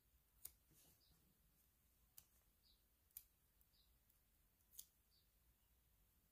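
Very quiet: four faint, sharp clicks of metal tweezers picking up and pressing paper stickers onto the board.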